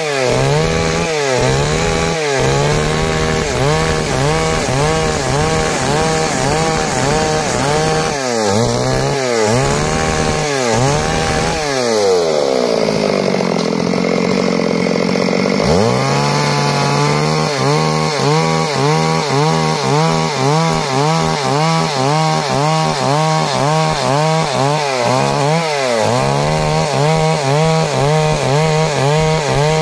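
Stihl MS 382 two-stroke chainsaw ripping lengthwise through a log into boards, its engine pitch wavering up and down a couple of times a second as the chain bites and frees. About twelve seconds in the engine slows right down, then revs back up about four seconds later and cutting resumes.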